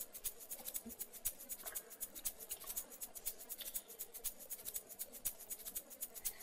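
Faint, rapid, irregular clicking and crackle, several clicks a second.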